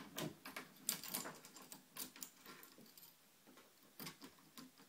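Small metal clicks and rattles at an uneven pace as a tubular key is worked in a 7-pin tubular cam lock.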